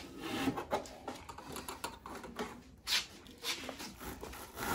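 Rope being pulled and worked through the lacing of a taiko reheading rig, with irregular rubbing, scraping and rasping of rope under tension and hands on the drum and rig.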